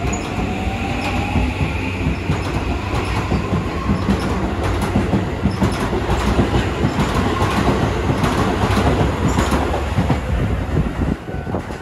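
Electric commuter train passing close by, its wheels clattering over the rail joints, with a whine rising in pitch during the first few seconds. The noise falls away near the end as the last car goes past.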